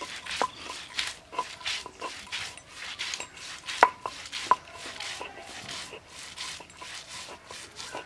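Stone roller of a shil-pata (flat grinding stone) being rolled and pushed back and forth over wet fresh turmeric. It makes repeated gritty scraping strokes, about two a second, each with a short knock of stone on stone.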